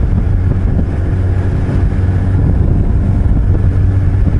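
Suzuki Hayabusa's inline-four engine running steadily under way, with wind noise on the microphone.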